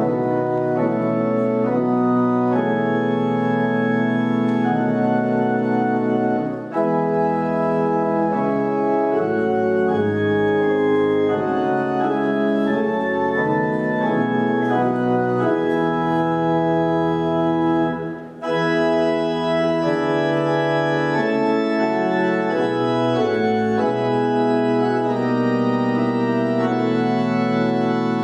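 Organ music: slow held chords that change every few seconds, with two brief breaks between phrases.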